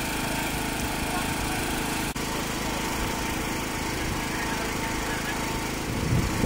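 A small engine running steadily, with a brief break about two seconds in.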